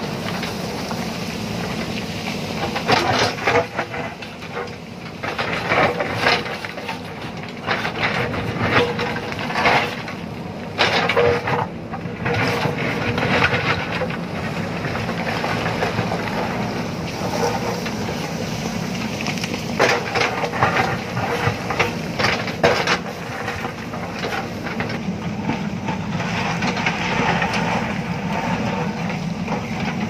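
JCB backhoe loader's diesel engine running steadily under load, with the bucket scraping and knocking against loose stone and rock in irregular bursts every few seconds.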